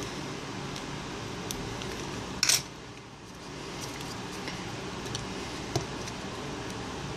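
A short metallic clatter about two and a half seconds in, as steel tweezers are put down on the workbench. Faint small clicks from handling the phone's circuit board and plastic frame follow, over a steady background hum.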